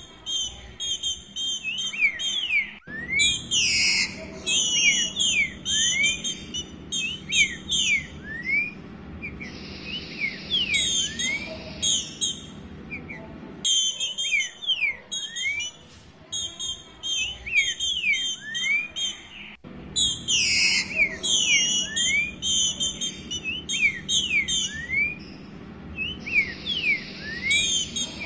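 Female green-winged saltator (trinca-ferro) calling to solicit a male for mating ('pedindo gala'): a long run of short, rising whistled notes, over dense, fast, high twittering.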